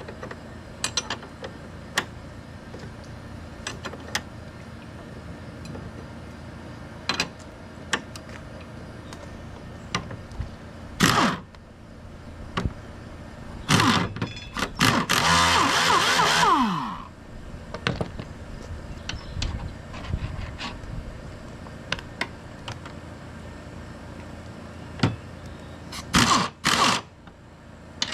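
Hand work on a steel mower deck: scattered metal clicks, clinks and scrapes of tools and parts. A louder stretch lasts about three seconds past the middle, with pitch falling near its end.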